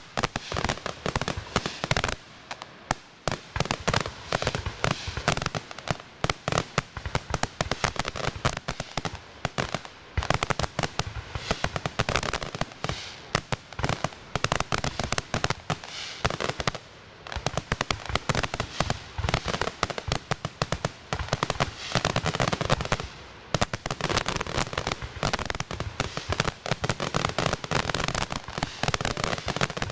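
Professional aerial fireworks display: a dense, continuous barrage of shell bursts and bangs, many per second, easing only briefly a few times.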